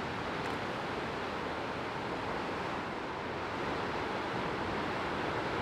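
Sea surf breaking on a rocky shore: a steady rushing wash, mixed with wind.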